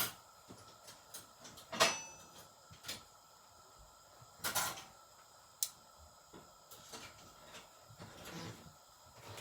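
A cooking utensil knocking and scraping against the pancake pan, a few separate sharp clinks, the loudest about two seconds in with a short metallic ring.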